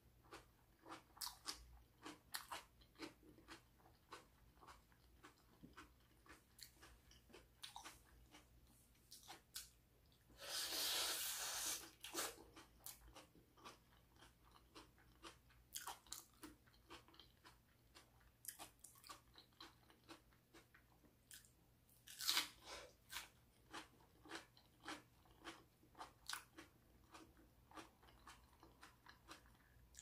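Close-miked, quiet eating sounds: a person biting and chewing crisp raw bell pepper stuffed with mashed vegetables, short crunches coming a couple of times a second. There is a louder stretch of crunching about a third of the way in and one sharp loud crunch about three quarters of the way through.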